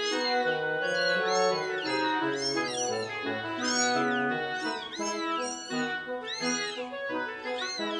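Newborn kittens mewing, high thin rising-and-falling mews about once a second, over background music with held notes.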